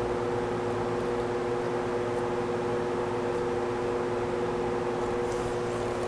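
Steady hum of a large electric fan running: an even whir with two held tones.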